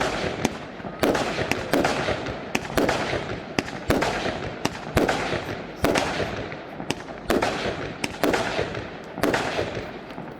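Fireworks display: loud bangs about once a second, each dying away over most of a second before the next.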